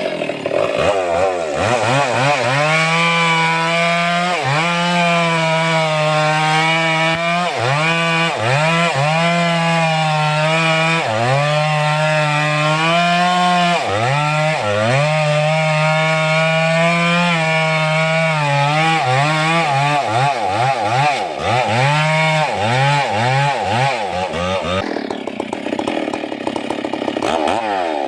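Stihl MS 382 two-stroke chainsaw running at high revs while cutting wood, its engine speed repeatedly dipping and recovering as the chain bites. Near the end the revs swing quickly up and down at a lower speed.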